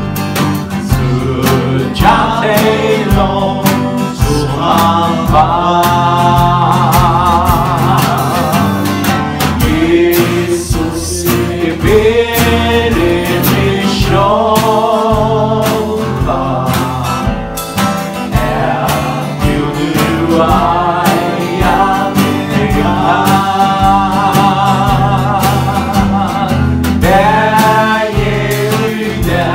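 A man singing a Christian song into a microphone while strumming an acoustic guitar, in sung phrases with short breaks between them.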